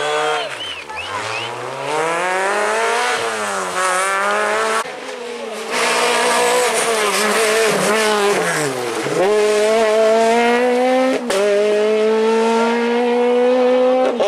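Rally car engines revving hard: a small hatchback accelerating out of a hairpin, its revs climbing and dropping through gear changes, with a brief tyre squeal near the start. After about five seconds a Peugeot 208 rally car takes over, its revs dipping once and then holding high as it pulls away.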